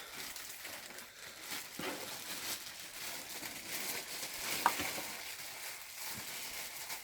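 Plastic packaging bags crinkling and rustling as vacuum cleaner parts are pulled out of them, with a brief sharp click about four and a half seconds in.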